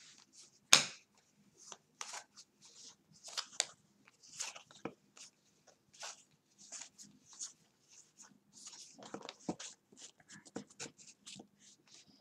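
2018 Gypsy Queen baseball cards being flipped through by hand, one after another: quick, irregular papery slides and snaps of card stock, with one sharper click just under a second in.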